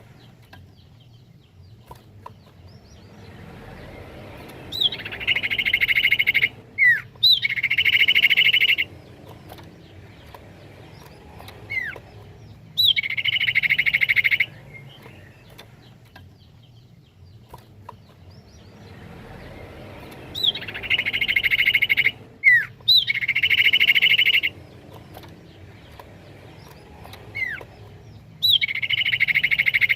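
Common iora (cipoh) song: short downslurred whistles followed by long, rapid, buzzy trills lasting a second or two, in bouts that repeat about every 15 seconds.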